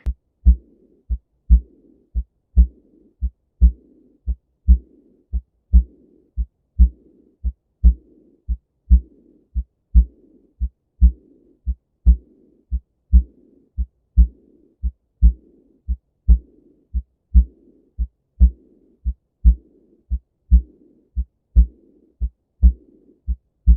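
Recorded heart sounds of aortic regurgitation through a stethoscope: regular low lub-dub heart sounds about once a second, each followed by a soft, high-pitched early diastolic murmur that fades away (decrescendo).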